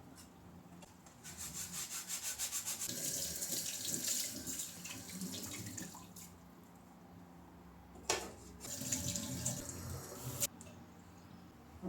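Water running from a tap into a sink in two spells, the second ending abruptly as the tap is shut off.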